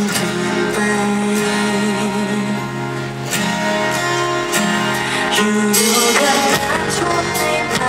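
A woman singing a slow song live while strumming an acoustic guitar, her voice holding long, wavering notes over the chords.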